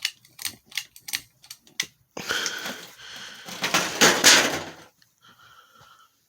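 Ceiling fan pull-chain switch clicking several times in quick succession as the fan is set to low speed. About two seconds in, a louder rushing noise follows for a couple of seconds.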